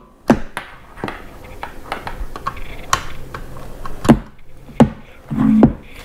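Handling noise from swapping XLR cables: a string of sharp clicks and knocks as the Rode microphone's XLR cable is unplugged from the audio interface and the other cable is handled, with a brief murmur of voice near the end.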